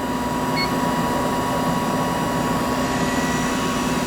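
Chevalier CGP-816 cylindrical grinder running, its wheel spindle and hydraulics making a steady hum with a constant whine over an even hiss.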